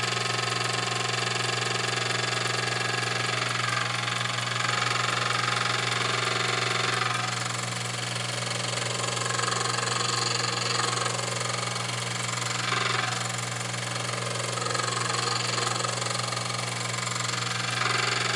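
Motor-driven grinding wheel on a lathe-mounted radius tool grinder, running with a steady hum while a small form tool is ground against it. The grinding hiss swells and fades several times as the tool is swept through its radius.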